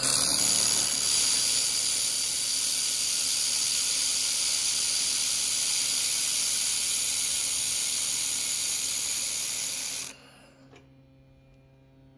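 Handheld fiber laser welding gun with wire feed running a fillet weld: a loud, steady hiss that starts abruptly and cuts off sharply about ten seconds in, leaving a low machine hum.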